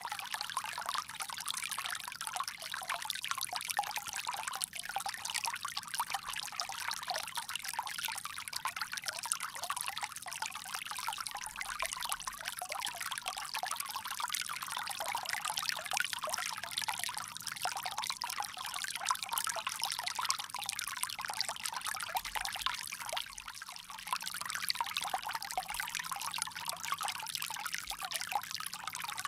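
Water pouring steadily from a bamboo spout in a continuous trickle, briefly quieter about 24 seconds in.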